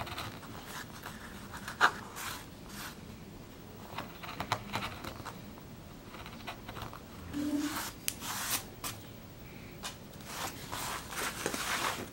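Small hand carving tool cutting into a plywood woodcut block: short scraping strokes and small clicks as wood is cut away, with a sharp click about two seconds in and a denser run of strokes around eight seconds in.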